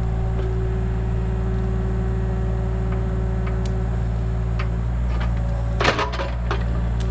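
Mini excavator engine running steadily, with a sharp knock about six seconds in.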